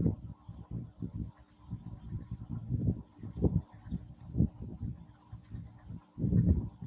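Crickets chirping, a steady high-pitched drone that carries on throughout. Soft low thumps come now and then, several of them.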